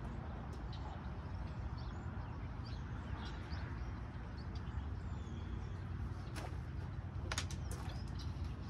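Outdoor ambience: small birds chirping faintly over a steady low rumble, with a few sharp clicks late on.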